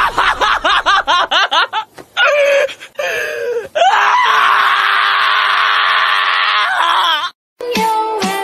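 A black-and-tan Shiba Inu screaming while held for a nail trim. First comes a fast run of sharp wavering cries, then a short break and more cries. About four seconds in it becomes one long high scream, which cuts off suddenly near the end.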